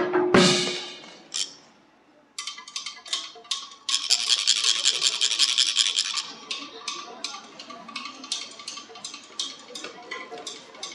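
Percussion accompaniment for a stage play: a struck hit dies away, then after a short pause quick clicking starts, with a dense rattle for about two seconds, settling into light ticks about four a second.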